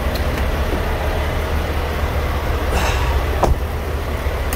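Steady low rumble of diesel truck engines idling around a truck-stop parking lot, with a brief faint squeak about three and a half seconds in.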